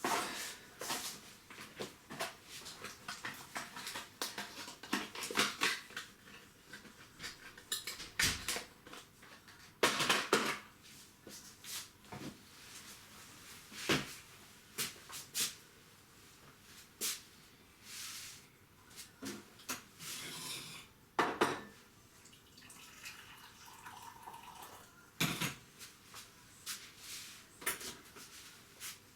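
Irregular clicks, knocks and clatter of small hard objects being handled.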